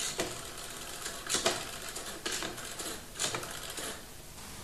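Four short, sharp mechanical clicks, about a second apart, over a quiet room.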